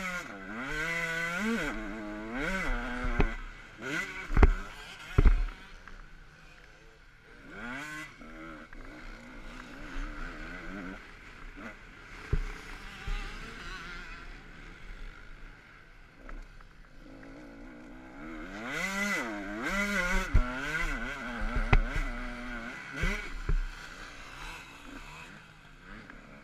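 Motocross bike's engine heard from the rider's helmet camera, revving up and down through the gears in two stretches of hard throttle with a quieter, lower-throttle stretch between. Several sharp thumps cut in along the way.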